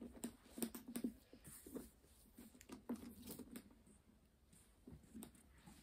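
Faint handling noise of a handbag: a run of soft clicks and rustles from the bag and its strap as it is held and slung over the shoulder, thinning out after about four seconds.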